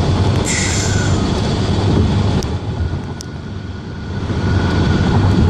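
Steady road and engine noise of a car driving, with a few faint sharp pops of distant fireworks.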